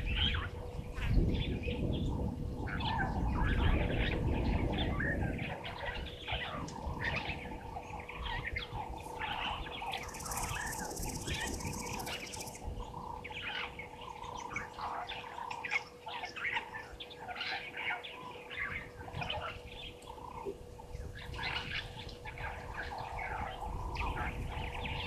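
Many birds chirping and calling over one another, with a faint steady hum underneath. A low rumble fills the first five seconds or so, and a high hiss comes in for about two seconds near the middle.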